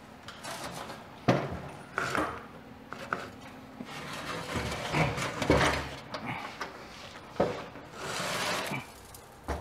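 A steel square-tube scale platform being shifted and tipped up on edge off sawhorses. It knocks and clunks several times and scrapes once, longer, near the end.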